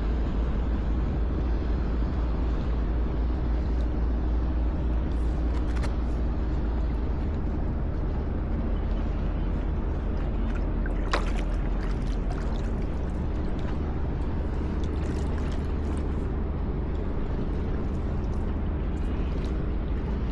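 Steady low rumble with a faint even hum from a large ship's machinery, with a few light splashes of water.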